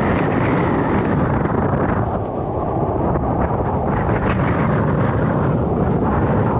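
Strong wind buffeting the microphone: a loud, steady, rumbling rush with no let-up.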